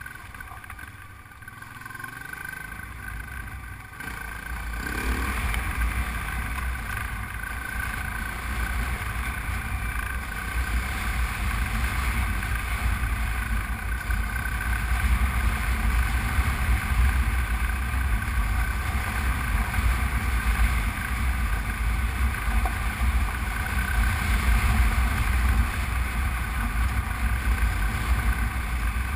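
Honda Transalp V-twin motorcycle engine running as the bike rides along, with heavy wind rumble on the camera microphone. The sound grows louder about four seconds in.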